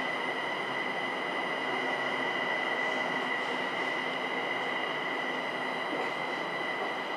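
Linimo low-speed maglev train running, heard from the front of the car: an even rush of running noise with a steady high whine held over it.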